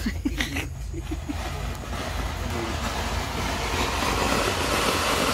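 Ground fountain firework (anar) hissing steadily as it sprays sparks. It starts about a second in, just after being lit, and grows louder as the fountain builds.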